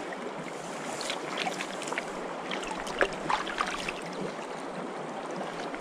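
Small trout stream running steadily over riffles, with a scatter of light water splashes and ticks about one to four seconds in.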